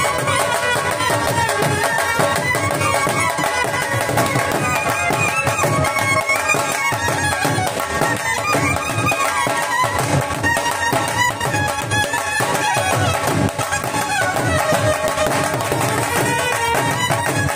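Punjabi band music: clarinets play a winding, ornamented melody over a steady, driving beat from several dhol barrel drums.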